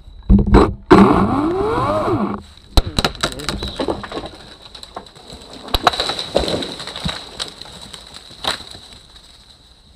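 Ego CS1800 battery chainsaw cutting in a loud burst over the first two seconds, its pitch rising and falling. Then a scatter of sharp cracks and snaps as the cut tree comes down through its branches.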